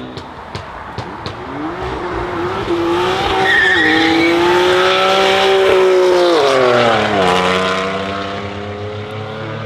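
Tuned sports car exhaust giving a few sharp pops, then the engine revving up and holding high revs for several seconds, with its pitch dropping about seven seconds in and settling lower.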